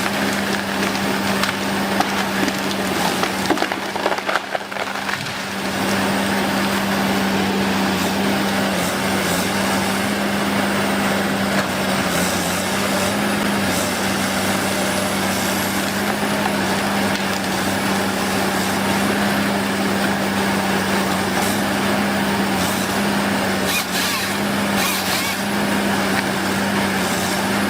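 A woodworking machine running steadily with a constant hum while it cuts wood, making a continuous rough, grinding noise. The sound briefly drops about four seconds in.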